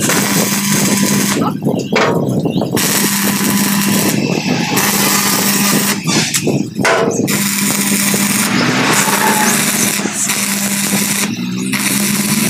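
Stick (manual metal arc) welding with an inverter welder: the electrode arc crackles and sizzles steadily on steel plate. It stops briefly several times as the arc breaks and is struck again.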